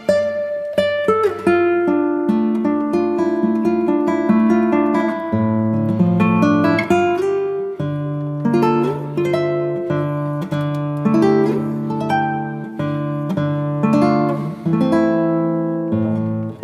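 Background music: an acoustic guitar piece of plucked and strummed notes over a held bass.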